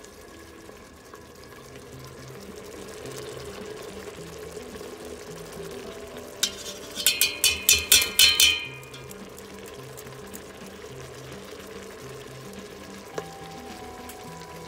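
A metal mesh strainer knocked repeatedly against the rim of a stainless-steel pressure-cooker pot to shake cooked pasta into the sauce: a quick run of about eight ringing metallic clinks about halfway through. Under it, a steady low simmer of tomato sauce.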